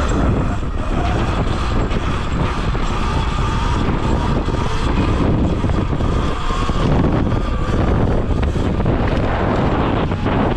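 Wind rushing hard over the microphone while riding an electric dirt bike, with the motor's faint whine drifting up and down in pitch underneath.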